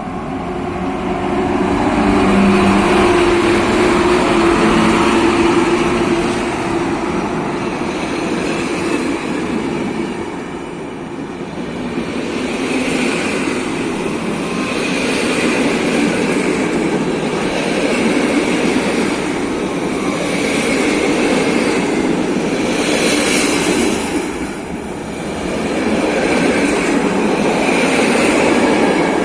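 A freight train of open coal wagons hauled by an ET22 electric locomotive rolling through the station. Its wheels clatter over the rail joints in bursts that repeat every couple of seconds as the wagons pass.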